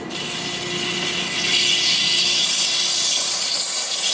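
Air hissing into a vacuum bell jar through its opened release valve as the chamber is let back up to room pressure. The hiss starts suddenly and grows louder over the first second or so, then holds steady.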